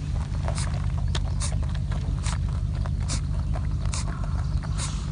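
A rabbit sneezing over and over: six short, hissy puffs, a little under one a second, over a steady low rumble.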